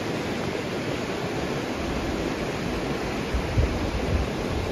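Fast, shallow mountain river rushing over rocks in a steady wash of water noise. A few low bumps on the microphone come between about three and a half and four seconds in.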